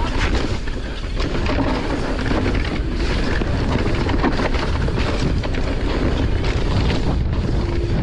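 Pivot Shuttle e-mountain bike descending a dirt forest singletrack: tyres rumbling over the ground and the bike's parts rattling and knocking over bumps, with wind buffeting the microphone.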